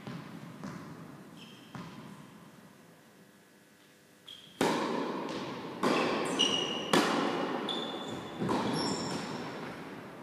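Tennis ball struck by rackets and bouncing on an indoor hard court during a rally, each sharp hit ringing on in the hall's echo; softer at first, a lull in the middle, then louder hits in the second half. A few short high squeaks from shoes on the court.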